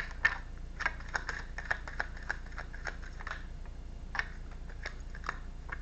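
A deck of tarot cards being shuffled and handled: quick irregular taps and clicks of card on card.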